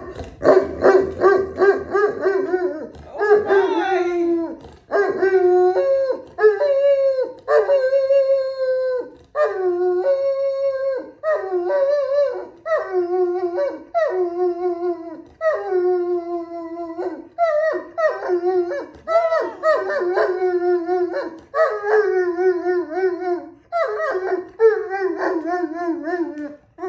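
Great Pyrenees dog "singing": a long run of howls, one after another, each about a second long, wavering and stepping between higher and lower notes, some falling away at the end.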